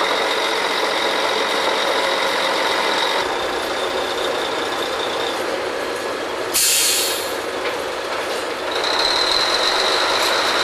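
Drilling rig machinery running steadily with a high whine, cut by a short, loud burst of hissing air about six and a half seconds in; the whine grows louder near the end.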